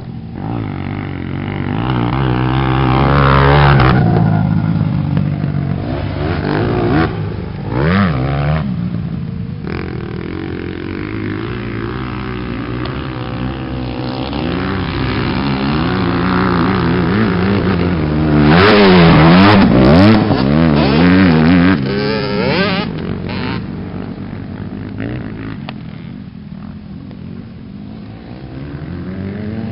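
Motocross bikes riding a dirt track, engines revving up and down as they accelerate and shift. The loudest passes come about three seconds in and again around two-thirds of the way through, fading lower near the end.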